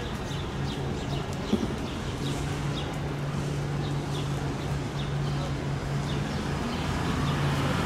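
Street ambience: a steady low engine hum from traffic, with a small bird giving short high chirps over and over, about one every half second.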